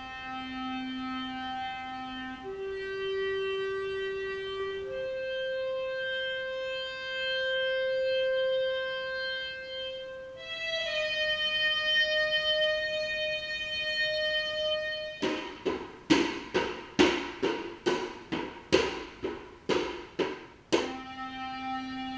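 Solo clarinet playing a slow melody of long held notes. About two-thirds of the way through it breaks into a run of short, sharply attacked notes, two or three a second, then settles back onto a long held note.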